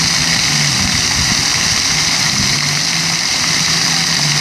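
Illuminated plaza fountain's ring of arching water jets falling and splashing onto the paved basin: a steady, loud rush of water.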